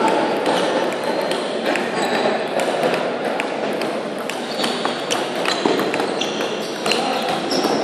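Table tennis ball clicking off bats and the table in quick, irregular strikes during a rally, over a steady murmur of voices echoing in a large hall.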